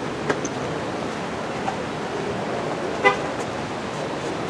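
Steady outdoor background noise, with a sharp click just after the start and one short toot, like a car horn, about three seconds in.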